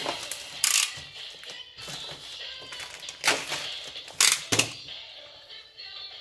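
Plastic courier mailer bag being handled and cut open with a utility knife: crinkling plastic in a few sharp bursts, with music playing underneath.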